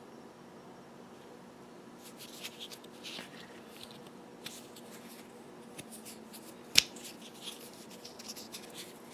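Hands handling a small plastic electric inflator and its power cord and air hose: scattered light rustles and clicks starting about two seconds in, with one sharp click about two-thirds of the way through.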